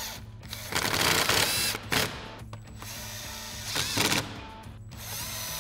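Cordless driver running 7 mm screws into a car's plastic splash guard: a run of about a second, a short blip, then another short run about four seconds in, the motor's whine rising as each run starts.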